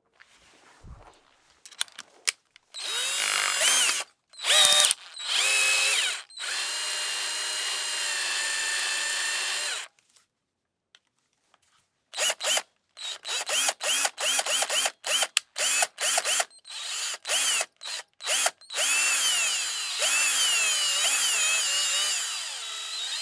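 Electric drill-driver motor whirring on the trigger: a few short runs, then a steady spin of a few seconds. After a short pause it is blipped in rapid short pulses, then run for several seconds at a wavering speed.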